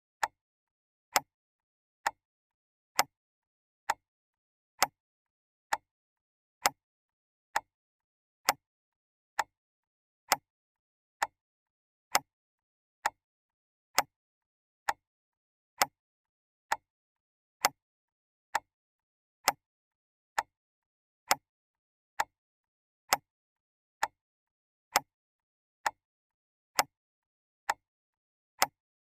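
Clock ticking: single sharp ticks, evenly spaced a little under a second apart, with silence between them.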